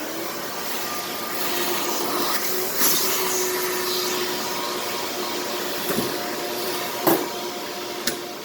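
Vacuum cleaner running steadily, sucking up the wood shavings left from drilling the hinge holes in a cabinet door, with a few sharp clicks along the way.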